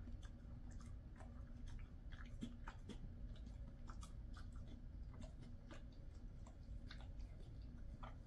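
A Jindo dog chewing and licking at a piece of kangaroo jerky: faint, irregular clicks and smacks of the mouth, over a steady low hum.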